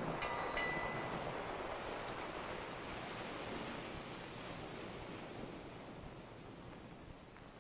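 A rushing noise that swells at the start and slowly fades over several seconds, with a brief faint high tone in the first second.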